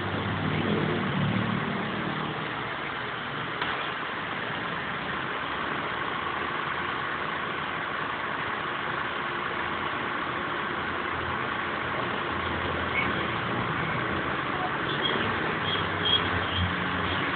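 A Proton car's four-cylinder engine idling steadily with the air conditioning switched on, heard from the open engine bay while the AC pressures are read on manifold gauges.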